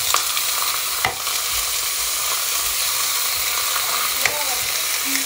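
Strips of pork belly sizzling steadily in a hot nonstick frying pan, with a few sharp clicks as tongs turn the pieces.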